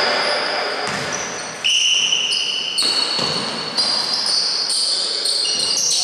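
Basketball game sounds on an indoor court: sneakers squeaking in short high tones on the hardwood floor, with the ball bouncing, in a reverberant gym.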